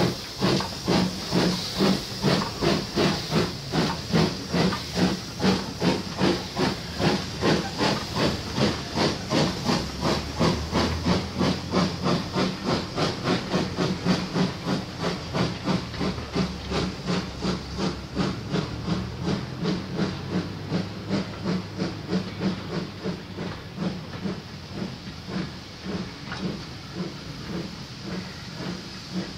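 BR Standard Class 2MT steam locomotive No. 78022 working a train of coaches away, its exhaust beating in an even rhythm of about two to three chuffs a second over steady steam hiss. The beats grow fainter over the last few seconds as the train draws away.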